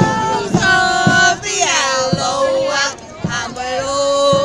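Parade band music with voices singing a tune over it, and short low drum thuds at irregular spacing.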